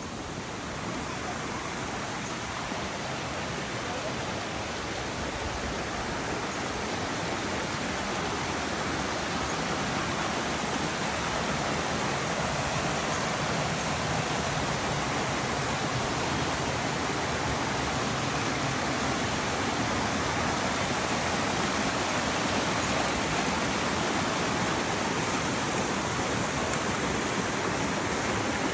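Waterfall and rocky creek rushing: a steady, even rush of water that grows slowly louder.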